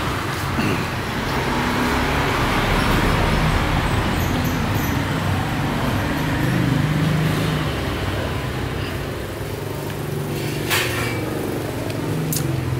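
Street traffic: motor vehicles passing, their engine noise swelling and fading, with a couple of sharp clicks near the end.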